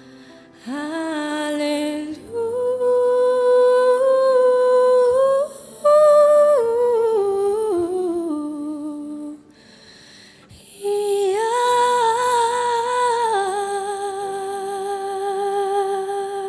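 A woman singing solo in slow phrases of long held notes. The first phrase steps down in pitch near its end, a pause of about a second and a half comes just before halfway, and a second phrase ends on a long held note.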